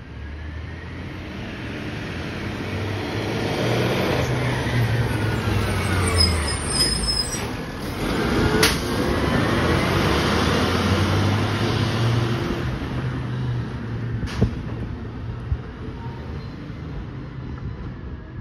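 Garbage truck driving past close by: its diesel engine and road noise swell as it approaches, are loudest through the middle, then fade as it moves away down the street. A sharp knock comes about halfway through and a lighter one a few seconds later.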